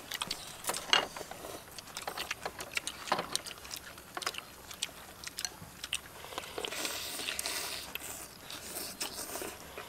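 Several people eating noodle soup with chopsticks: scattered sharp clicks of chopsticks against porcelain bowls, and a stretch of slurping about seven seconds in.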